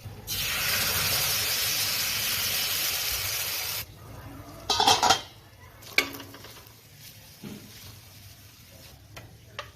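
Loud sizzling in a hot pan for about three and a half seconds, cutting off suddenly, followed by a few clatters of a utensil against the pan and a sharp click.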